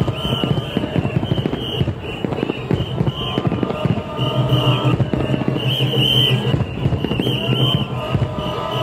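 Festival crowd with a rapid, unbroken run of sharp cracks and bangs, and high wavering calls that come back about every second or two.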